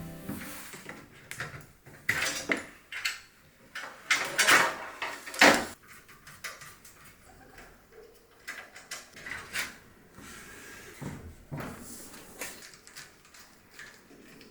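PC parts being handled and fitted during a build: irregular clicks, knocks and rustles, loudest from about four to five and a half seconds in.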